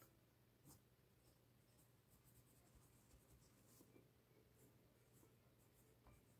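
Faint scratching of a pencil writing letters on paper, in short scattered strokes, over a steady low hum.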